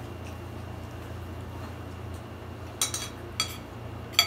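Spoons clinking against bowls: several sharp clinks in the second half, the loudest near the end, over a steady low hum.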